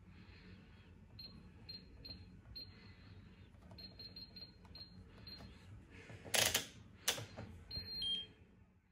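Short, high electronic beeps from a washing machine's control panel, recurring irregularly as buttons are pressed, with two loud knocks about six and a half and seven seconds in and a two-note beep near the end.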